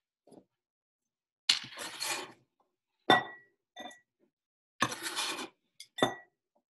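Kitchen knife dicing a mango: two longer scraping cuts and three sharp clinks that ring briefly.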